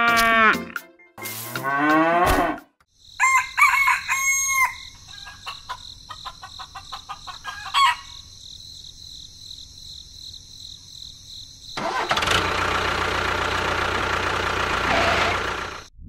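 A rooster crowing, then short clucking calls over a steady high whine. About twelve seconds in, a loud, noisy motor-like sound starts and runs for about four seconds.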